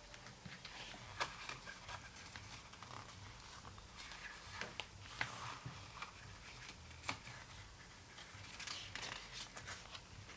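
Faint rustling and light ticks of album photobook pages being turned and handled, with a few sharper clicks scattered through.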